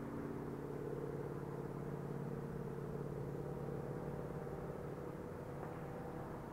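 A motor vehicle's engine running with a steady hum.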